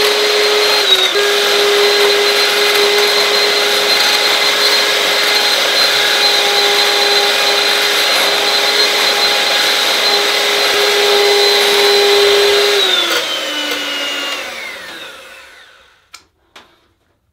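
Electric hand mixer running steadily with a high motor whine as its beaters whip cream. The pitch steps down slightly about a second in. Near the end the motor is switched off and winds down to a stop, followed by a few faint clicks.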